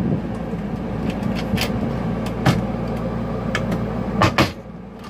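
Curved wooden overhead locker doors being shut, with a few sharp latch clicks and a loud double clack near the end as one door is pressed closed. A steady low hum runs underneath and drops away after the final clack.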